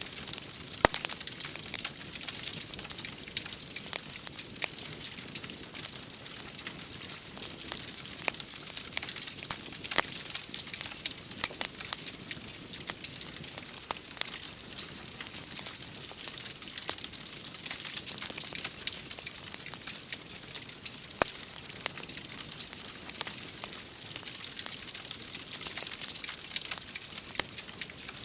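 Wood fire in a fireplace crackling, with frequent sharp pops and snaps over a steady hiss of rain.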